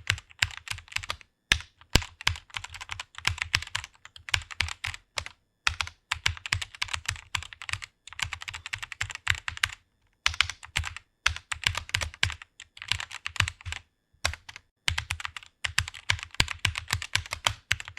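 Fast typing on a computer keyboard: rapid runs of key clicks broken by short pauses of under a second.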